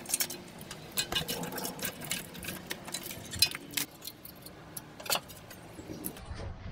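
Hand tools clicking and tapping on the steel chassis frame as brake-line fittings and clips are worked loose. The clicks are sharp and irregular, a few each second.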